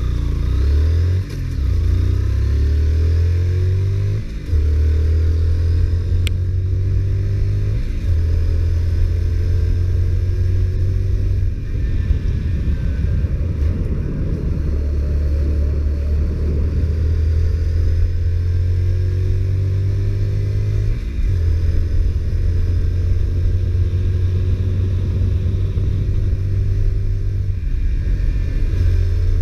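Honda CBR125R's single-cylinder four-stroke engine on its stock exhaust, pulling under way. The revs climb and drop back at each gear change, several times over, with the engine held steady between.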